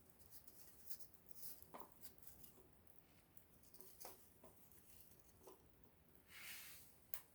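Small wood campfire crackling softly, with scattered sharp pops and ticks, a brief hiss about six and a half seconds in, and a sharp crack just after.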